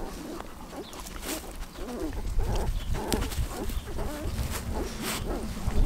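Young puppies nursing, making many short squeaky calls one after another, with scattered small clicks.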